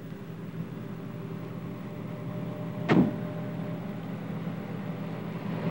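Army truck engine running steadily and growing louder. About halfway through comes a brief sharp sound that falls quickly in pitch.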